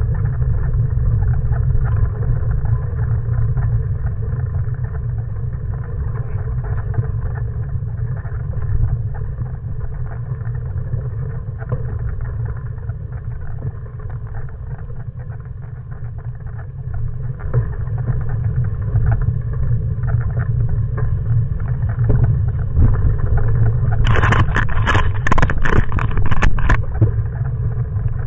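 Steady low rumble of a bicycle rolling along a gravel trail, tyres crunching on gravel and wind buffeting the handlebar-mounted camera's microphone. About 24 seconds in, a few seconds of louder, sharper crackling.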